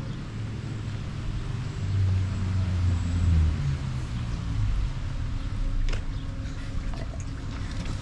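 A motor vehicle's engine hum going past, swelling about two seconds in and dropping away after three and a half seconds, over a steady hiss.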